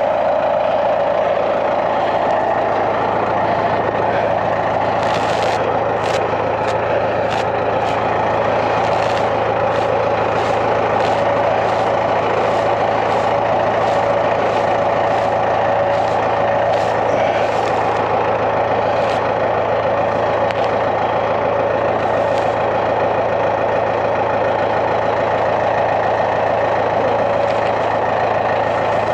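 A heavy engine running steadily at constant speed. A string of light clicks or rattles rides over it from about five to eighteen seconds in.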